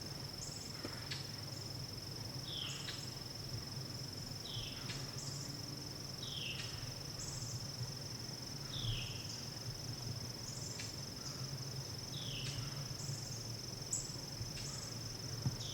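Insects trilling steadily on one high note, with a short falling chirp repeating about every two seconds.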